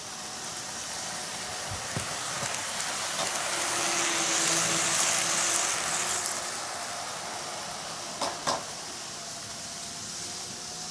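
N-gauge model train running past on sectional track: a steady whirring, hissing run of motor and wheels that swells to its loudest about halfway through, then fades as the train moves away. Two sharp clicks come close together about eight seconds in.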